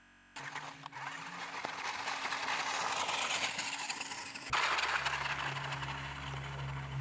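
Mini 4WD RC truck running over rough ground: a steady rushing, clattering noise from the drive and tyres. About four and a half seconds in, it gets suddenly louder and a steady low hum sets in.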